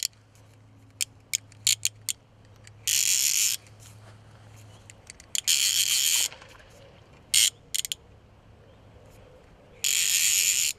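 A fly reel's click ratchet buzzing in three bursts of about a second each, with scattered single clicks and a short rattle between them, while a hooked carp is played on the fly rod.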